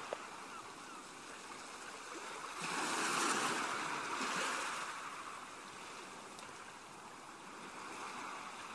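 Ocean waves washing on a shore, one surge swelling about three seconds in and then easing off.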